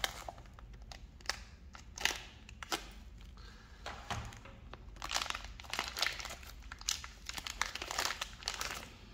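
Clear vacuum-sealed plastic bag crinkling and crackling as hands open it and pull out a metal fidget spinner, in irregular bursts that get busier over the last few seconds.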